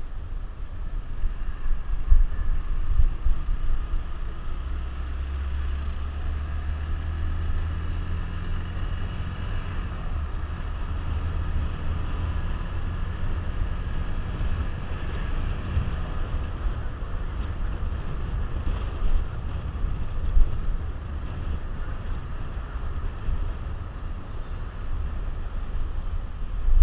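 Suzuki GZ150's single-cylinder four-stroke engine running as the motorcycle rides in traffic, a low steady rumble, with wind buffeting a helmet-mounted microphone.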